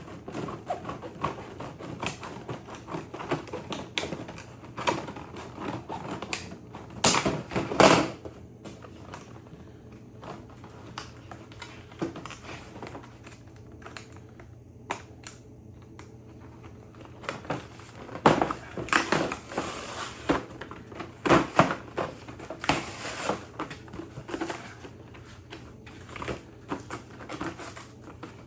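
Scissors cutting open a screwdriver set's packaging and hands handling it: a run of sharp clicks, snips and crackles, with louder, denser clusters about seven seconds in and again from about eighteen to twenty-three seconds in.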